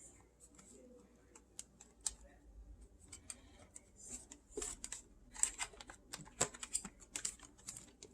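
Light, irregular clicking and tapping of small hard objects being handled, busiest in the second half; no motor is running.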